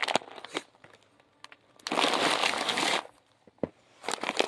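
A large dry dog food bag rustling and crinkling as it is handled and turned over, with scattered small clicks and one loud rustle lasting about a second, roughly two seconds in.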